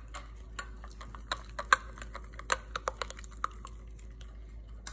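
Metal spoon stirring melted butter sauce in a glass Pyrex measuring cup, clinking and tapping against the glass in quick, irregular strokes.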